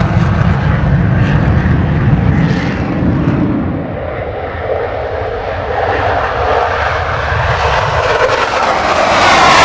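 F-16 jet engine in full afterburner during takeoff: a loud, continuous roar. It eases off a little midway, then builds again with a sweeping, phasing sound as the next jet passes close on its takeoff run.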